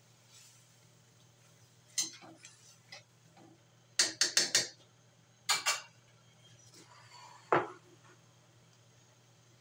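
A cooking utensil clinking against a metal wok while fish in coconut milk is stirred: a few light taps about two seconds in, a quick run of four sharp clinks around four seconds, and two more soon after. Near the end, a heavier knock as a ceramic bowl is set down on the counter.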